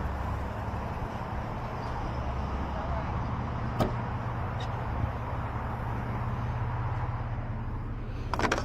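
Vehicle engine idling with a steady low hum, with two sharp clicks around the middle and a brief rattling clatter near the end.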